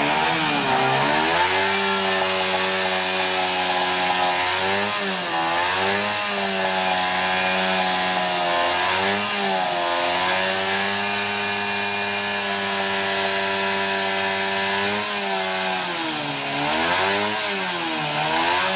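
Vintage Japanese motorcycle engine idling, revved up in short blips several times and dropping back to idle.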